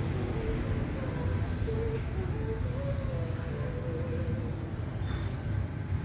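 Steady outdoor ambience: a constant high-pitched insect drone over a low, even rumble.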